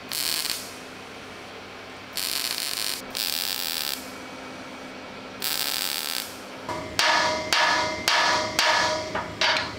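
MIG welder laying short tack welds on thin sheet steel: four separate bursts of hiss, each under a second. Then, from about seven seconds in, a hammer strikes the welded sheet-steel door about eight times in quick succession, each blow ringing.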